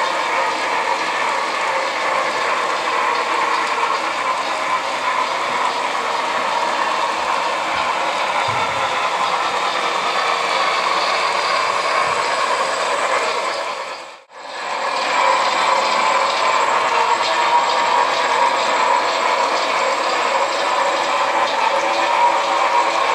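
HO-scale model freight train rolling along the track: a steady clatter of many small wheels on the rails. The sound drops out briefly about two-thirds of the way through, then carries on.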